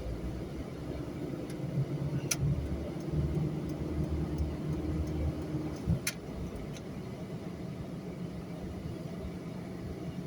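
Car engine and road noise while driving, a steady low drone that grows a little stronger for a few seconds and then eases. Two sharp clicks sound, about two seconds in and again about six seconds in.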